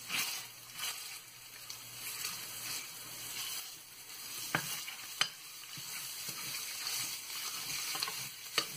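Ground pork sizzling in hot oil in a stainless steel frying pan as a metal spoon breaks it up and stirs it. A steady hiss throughout, with a few sharp clicks of the spoon against the pan about four and a half and five seconds in and again near the end.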